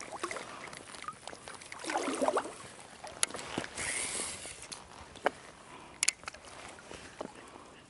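Quiet small-boat fishing sounds: a few sharp clicks and knocks of tackle and boat fittings, a short wavering squeak about two seconds in, and a brief hiss of water around four seconds in.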